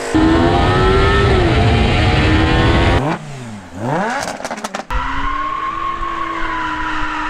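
A quick montage of performance car engines. First an engine held at high revs for about three seconds, then an engine note that drops and climbs again with a quick run of sharp cracks. From about five seconds on comes a steady engine note.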